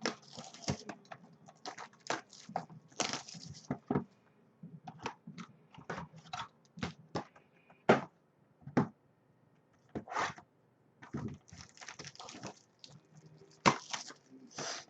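Hands opening and handling trading-card packaging: irregular crackling of plastic wrap and cardboard, with sharp clicks and short tearing rustles.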